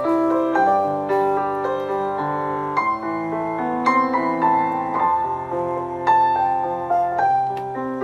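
Background piano music: a slow melody of single notes ringing over held lower notes.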